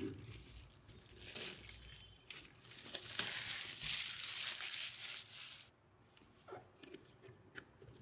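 Clear plastic shrink wrap being torn open and pulled off a cardboard box, crinkling; the loudest stretch runs from about two to nearly six seconds in, followed by a few faint taps.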